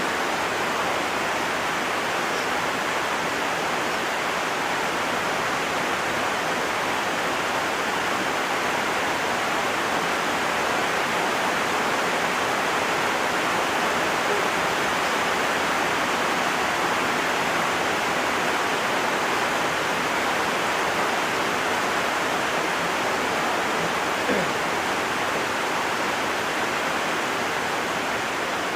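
Heavy rain falling steadily, a dense, even rush of water noise.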